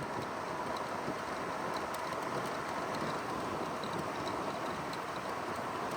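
2009 GE AEW05LMS2 5,200 BTU window air conditioner running with its fan on low: a steady rush of air.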